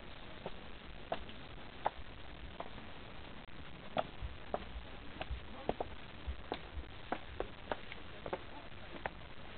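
Footsteps on a hard path: sharp, irregular taps about every half second to second over a faint steady hiss.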